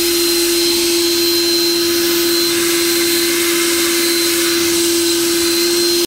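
Ego 56-volt cordless battery leaf blower running at steady speed: a loud rush of air with a steady fan whine and a fainter high whine above it. It cuts off suddenly at the end.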